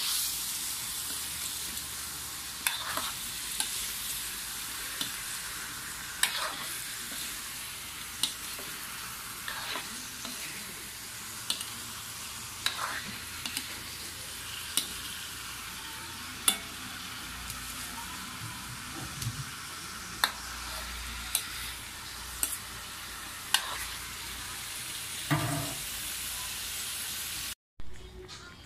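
Cubed tofu sizzling steadily as it stir-fries in a wok, with a metal spatula scraping and clacking against the pan every second or two as it is turned. The sound drops out briefly near the end.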